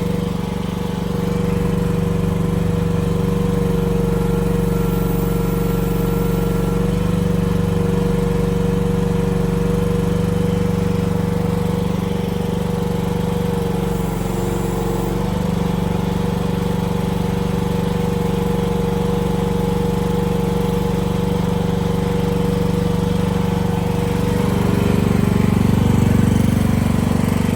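Small gasoline engine of an AGT QK16-R mini excavator running steadily while its hydraulic functions are worked. The engine note dips briefly about halfway through and changes, getting a little louder, near the end as the hydraulics take load.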